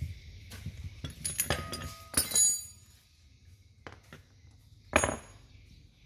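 Metal tools and parts clinking against each other while a 24-volt alternator is worked on. A quick run of sharp clinks, each with a brief ring, peaks about two seconds in, and another clink follows near the end.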